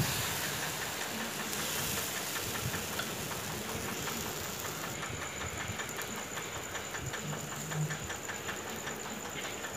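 Thin rava dosa batter sizzling on a very hot dosa griddle: a steady hiss with rapid fine crackles as the lacy batter sets.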